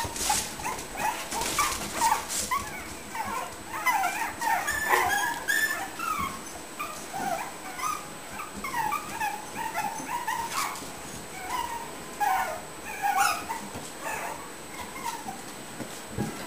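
Several puppies whimpering and yipping in many short, overlapping high squeaks that bend in pitch. Rustling and a few knocks are mixed in, busiest in the first two seconds.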